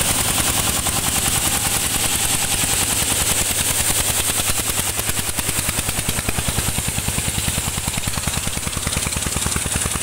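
Stationary diesel engine running hard with a rapid, even chugging, belt-driving a coffee huller that is husking dried coffee cherries. The sound drops a little after about four seconds.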